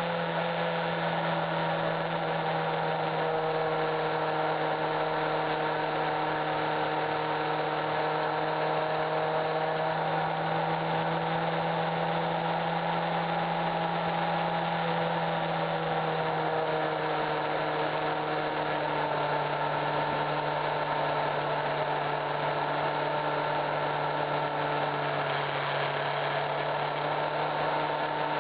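Honda CBF600's inline-four engine running steadily at cruising speed, heard from on board the motorcycle; its note dips a little about midway.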